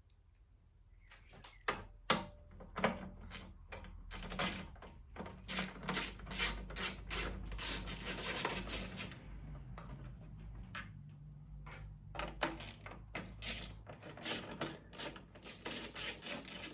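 Hands working on an old lawn mower: a quick, irregular run of clicks and knocks, busier and hissier from about four to nine seconds in, over a faint low hum.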